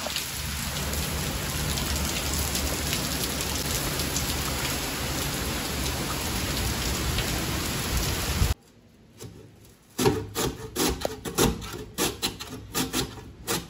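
Heavy rain pouring down in a steady dense hiss that cuts off about eight and a half seconds in. After a short pause come repeated rasping strokes as potato is pushed across the slicing blade of a stainless-steel box grater.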